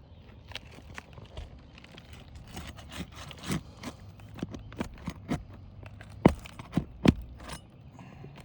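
Roof snake shingle-removal bar working under brittle old roof shingles to pull nails: irregular sharp clicks, knocks and scrapes, with two louder knocks near the end. The shingles are brittle enough to tear at the nail holes as the nails come out.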